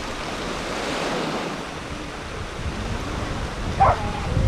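Small waves lapping and breaking along a lake shore, with wind buffeting the microphone. A dog gives one short bark near the end.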